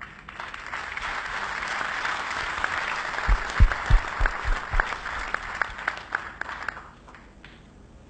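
Audience applauding, swelling over the first second and dying away about seven seconds in, with a few louder, closer claps around the middle.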